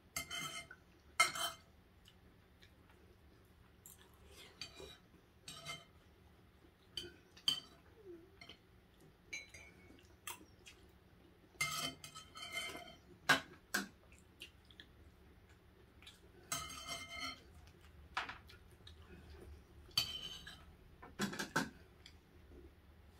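Cutlery clinking against dishes in short, irregular clinks and knocks, some ringing briefly.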